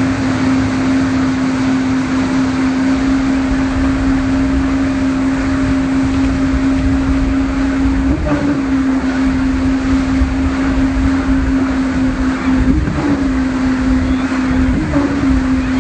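Speedboat engine running at a steady high drone while towing, its pitch wavering briefly a few times, over a constant rush of wind and churning wake water.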